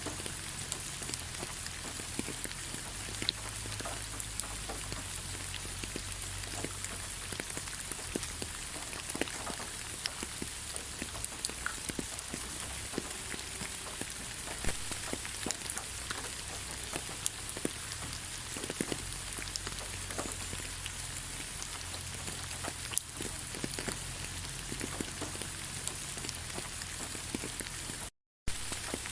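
Steady rain falling in a forest: a constant hiss with many separate drops ticking through it. The sound cuts out completely for a moment near the end.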